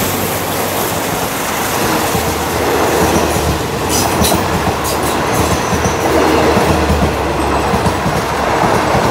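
Alsthom diesel-electric locomotive passing close by, then its passenger coaches rolling past with the clickety-clack of wheels over the rail joints and a steady low rumble.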